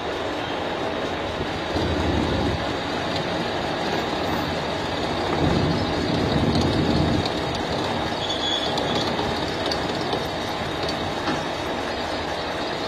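Mini lathe running as a milling machine, its chuck-held end mill cutting into a toothed metal gear wheel: a steady mechanical grinding noise of spindle and cut, swelling louder about two seconds in and again from about five and a half to seven seconds.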